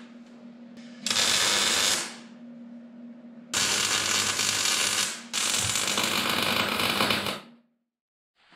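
Wire-feed (MIG) welder tack-welding. The arc sounds in three bursts: one of about a second, then two of about two seconds each close together, over a steady low hum. All sound stops abruptly near the end.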